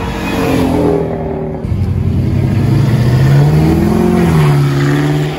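Car engines accelerating hard as cars pass close by one after another, first a white BMW sedan, then a black sedan. The second car's engine note climbs through the revs and holds loud.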